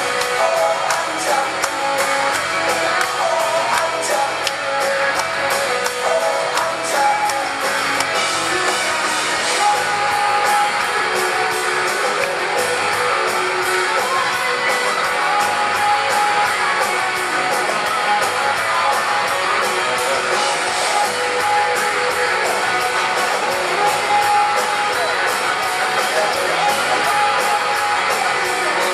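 Live rock band playing: electric guitars and bass over a steady drum beat.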